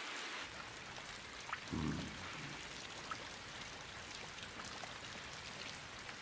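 Steady rain falling, an even hiss with scattered drop ticks. A brief low thump sounds about two seconds in.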